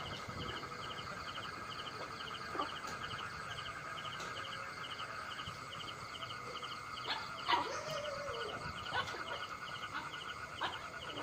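Night insects chirping: short pulsed chirps repeating about twice a second over a steady high drone, with a few faint clicks.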